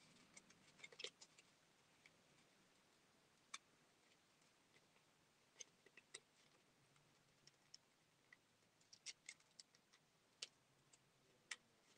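Near silence broken by faint, scattered clicks and ticks of paper being handled: a paper poppy cutout folded with its petal corners gathered onto a brad.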